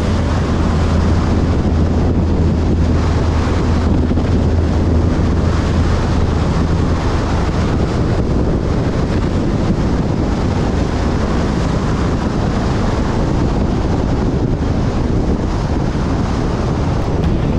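Wind rushing over the microphone of a camera on a moving motorcycle, a steady loud noise, with the motorcycle's engine running underneath. A low hum fades out about halfway through.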